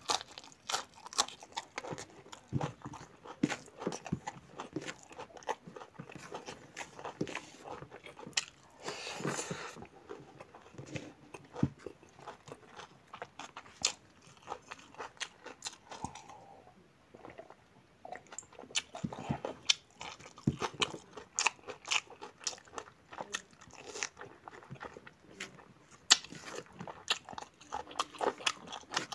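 Close-miked chewing and biting of pork curry and rice: a steady run of short, sharp wet clicks and crunches, with a longer noisy stretch about nine seconds in and a quieter spell around sixteen seconds.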